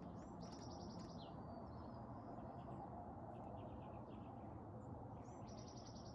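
A songbird singing a short, fast trill of about ten high notes, each phrase ending in a downslurred note. The phrase is given twice, about five seconds apart, with fainter chips in between, over a steady low background rumble.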